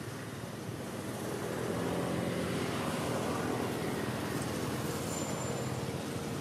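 A motor vehicle's engine running, growing louder about a second and a half in and then holding steady.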